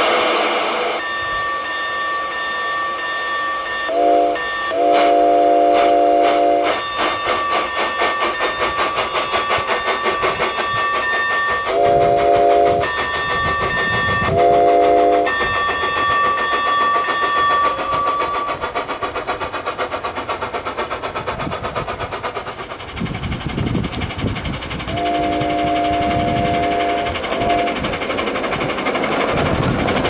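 Electronic steam sound-card effects from a G scale Aristocraft USRA Mallet model locomotive under way. Steady rhythmic chuffing exhaust beats that quicken as it gathers speed, a high steady ringing tone, and several blasts of a multi-note chime whistle: two early, two in the middle and a longer one near the end.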